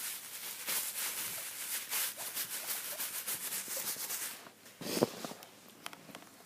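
A hand rubbing and stroking an animal's fur close to the microphone, a dense rustling rub that goes on for about four seconds, then one louder bump about five seconds in.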